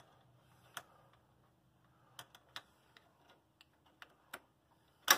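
Scattered small clicks and taps from fingers handling the governor arm and its linkage spring on a riding mower's engine, with the engine off. The loudest click comes near the end.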